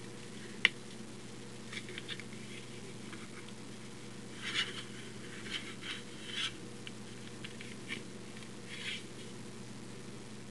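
Small metal lock picks being handled: a sharp click less than a second in, then scattered light clicks and scrapes, over a steady low hum.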